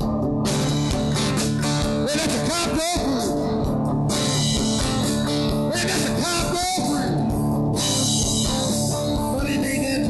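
Live band playing: guitars, bass and drums, with a lead line that slides steeply up in pitch a few times.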